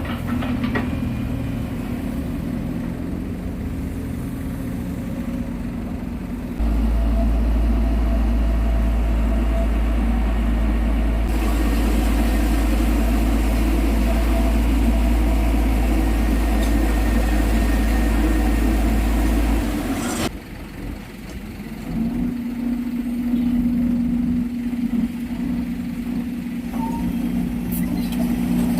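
Heavy diesel engines of construction machinery running steadily. A deep low rumble joins in about six seconds in and stops abruptly about twenty seconds in. After a brief dip, an engine drone with a steady hum carries on.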